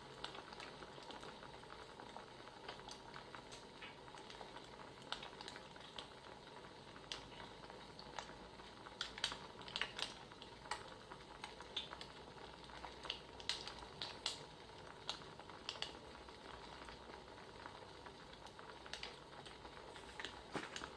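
Wood fire crackling: a faint steady hiss with irregular sharp pops and snaps, busiest in the middle stretch.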